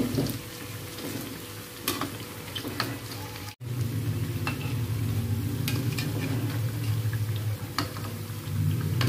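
Bakwan vegetable fritters sizzling in hot oil in a wok, with a metal spatula scraping and tapping against the wok as they are turned. The sound drops out for an instant a little over three seconds in; after that a low steady hum sits under the sizzle.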